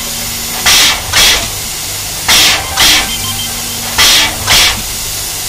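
Tkt48 steam locomotive standing in steam, puffing out sharp hisses of steam in pairs, three pairs about every second and a half to two seconds, with a steady low hum between the puffs.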